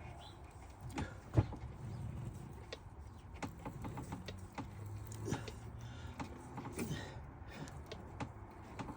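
A 5 mm tap being turned by hand into a hole in silver steel, held in a lathe tailstock tap holder: faint, scattered clicks and creaks, with a sharper click about one and a half seconds in.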